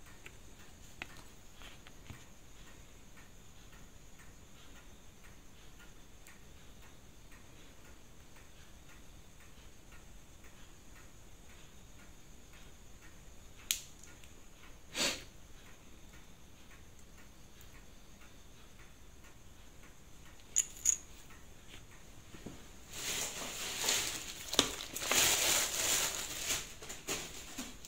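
Small metal watch parts and steel tweezers clicking against the bench and a plastic parts tray: a few single clicks, then several seconds of clinking and rustling near the end as parts are set into the tray. The rest is faint room hiss.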